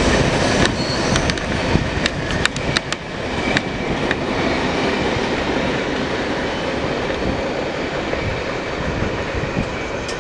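Freight train cars rolling past, wheels clicking over the rail joints in the first three seconds, then a steady rumble and hiss of wheels on rail.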